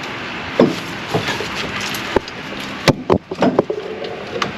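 Hand tools and parts knocking and clanking against metal in a vehicle's engine bay: about half a dozen separate sharp hits at irregular intervals over a steady background hiss.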